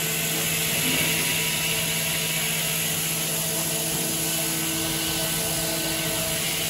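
CNC machining centre spindle at 9,739 rpm driving a 10 mm four-flute WIDIA WCE4 solid carbide end mill through stainless steel in a high-speed trochoidal contour cut, 30 mm deep. It makes a steady whine over a hiss, with no change in pitch.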